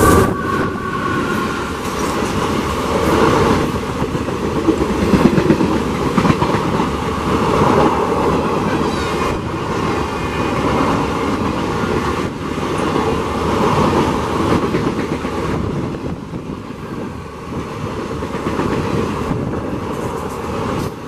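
Express train passing at speed on the adjacent track: a WAP4 electric locomotive, then a long rake of passenger coaches rushing past with a steady rumble and the clickety-clack of wheels over rail joints. A horn sounding at the start fades out within the first two seconds.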